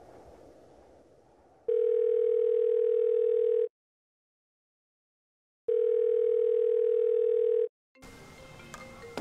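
Telephone calling tone: two long steady beeps at one pitch, each about two seconds long, with two seconds of silence between them. Faint outdoor ambience with a few clicks comes in near the end.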